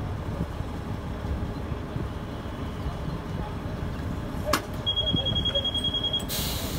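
2006 New Flyer D40LFR diesel bus idling at a stop. About four and a half seconds in there is a click, then a steady high door-closing beep for over a second, followed near the end by a burst of air hiss from the pneumatic doors and brakes.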